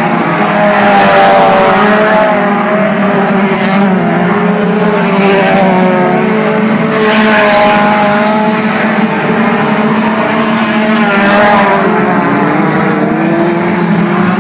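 A field of dirt-track race cars running laps together, loud, their several engines overlapping and rising and falling in pitch as the drivers get on and off the throttle.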